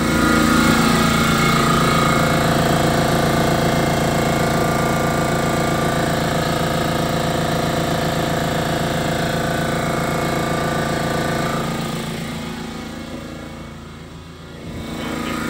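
Fortress air compressor running, its motor and pump giving a loud, steady hum with a rapid beat as it builds tank pressure. It grows fainter for a couple of seconds near the end, then comes back up.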